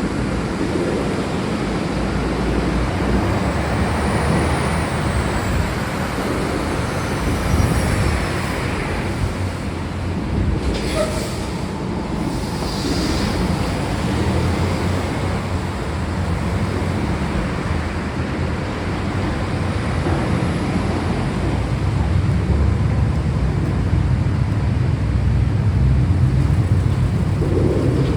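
Steady rain with a low rumble of thunder underneath, the rumble swelling over the last few seconds.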